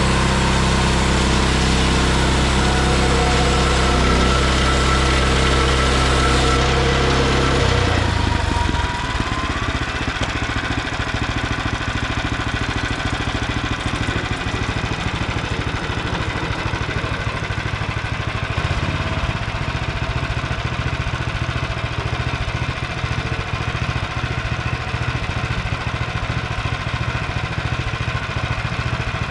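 Small gasoline engine of a Frontier OS23 bandsaw sawmill running steadily; about eight seconds in its sound changes from a smooth steady hum to a rougher, busier running that continues to the end.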